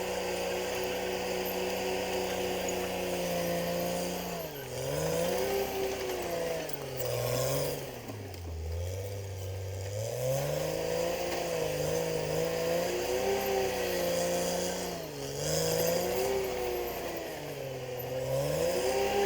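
Caterpillar D6R XL bulldozer's diesel engine running at steady high revs. Its pitch sags and recovers several times, dropping deepest about eight to ten seconds in.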